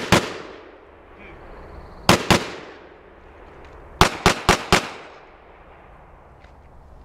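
Gunshots in quick strings: a pair at the start, another pair about two seconds in, then four rapid shots about four seconds in, each trailing off in an echo.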